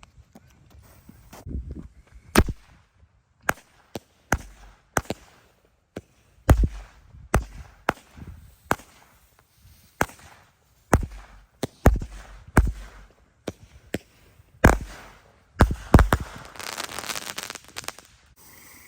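Consumer fireworks going off: a string of sharp bangs at uneven intervals, roughly one or two a second, with a burst of dense crackling near the end.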